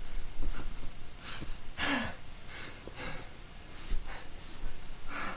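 A man's laboured breathing during a seizure: a few irregular, forceful breaths and gasps, the loudest about two seconds in carrying a short falling groan.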